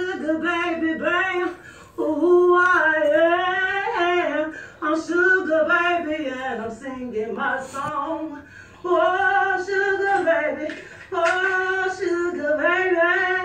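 A woman singing unaccompanied, in a run of sustained, wavering phrases broken by short pauses.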